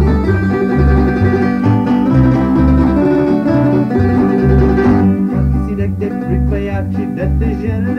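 Instrumental passage of a Croatian folk song: plucked string instruments play melody and chords over a steady, pulsing bass line, with no singing. The upper strings thin out about five seconds in.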